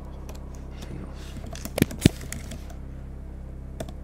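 Computer keyboard keystrokes: scattered key clicks, two louder ones about two seconds in and another near the end, over a steady low hum.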